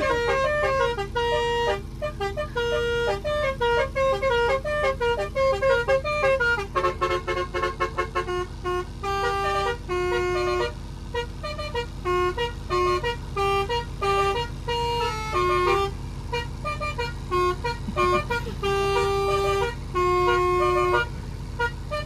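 Basuri musical 'telolet' car horn with a DAV tune module, heard from inside the cabin, playing a quick melody of short horn notes. About seven seconds in it switches to a different tune with longer, lower notes.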